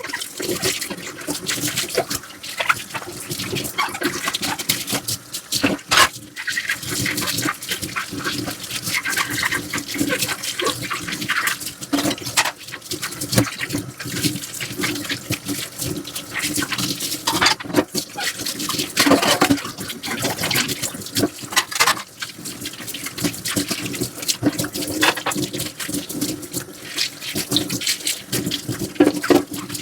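Dishes being scrubbed by hand in a sink: quick, scratchy scrubbing strokes, one after another, with water.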